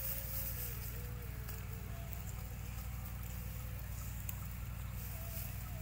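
A steady low hum, like a distant engine, with faint wavering sounds above it.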